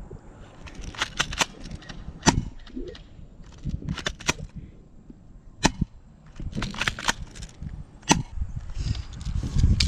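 Airsoft guns firing about a dozen sharp single shots at irregular intervals, with rustling of movement underneath.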